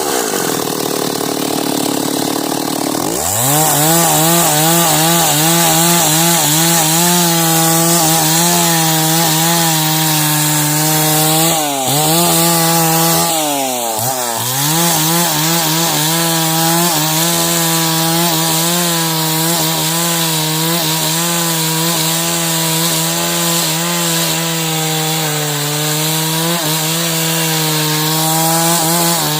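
Two-stroke chainsaw ripping timber lengthwise into beams, held at high revs under load. The engine drops toward idle at the start and revs back up about three seconds in, then dips briefly twice near the middle.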